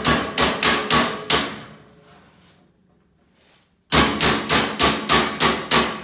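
Hammer striking the edge of a sheet-metal patch panel held over a steel I-beam, folding it over to form a lip, each blow with a short metallic ring. Two quick runs of blows, about four a second, with a pause of about two seconds between them.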